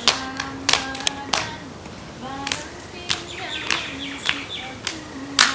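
Acehnese sitting body-percussion dance: sharp hand claps and slaps on the body and ground at an irregular rhythm, over a held sung chant.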